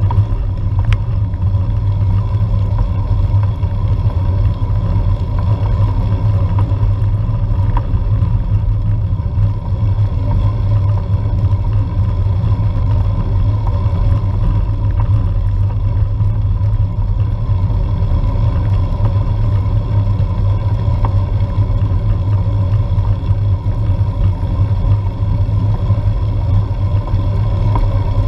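Steady low rumble of wind buffeting and road vibration picked up by a GoPro Hero4 mounted on a road bike climbing, with a faint steady high tone above it.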